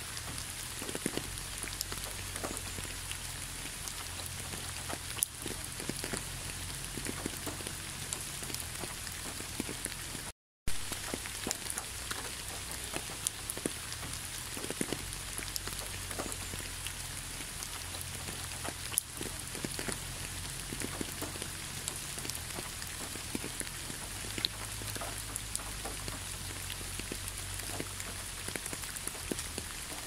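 Steady rain falling on a wet asphalt road, with many separate drop hits over an even hiss and a low rumble underneath. The sound cuts out completely for an instant about ten seconds in.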